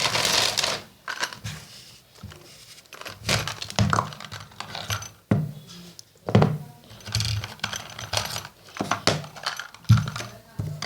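A handheld digital multimeter and small tools being handled on a hard surface: irregular clicks, knocks and light rattles, with a rustle in the first second.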